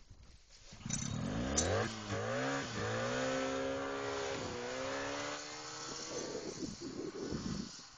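1971 Arctic Cat Panther snowmobile, powered by a swapped-in 1968 Polaris two-stroke engine, revving up hard about a second in and running at high revs under load plowing through a snow drift. The pitch dips briefly a few times, then the engine sound drops away near the end.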